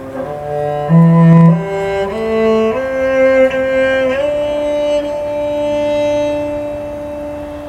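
Stainless-steel sound sculpture giving out sustained, cello-like tones: a run of notes that change pitch about every half second, then one long held note from about four seconds in.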